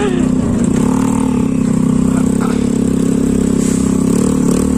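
Honda Click scooter's single-cylinder engine running steadily under throttle while riding, its pitch dipping and picking up again about a second in.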